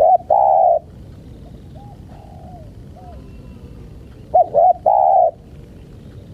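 Spotted dove cooing close by: a phrase of two short notes followed by a longer rolling coo, heard at the start and again about four and a half seconds in. Fainter dove coos sound in between.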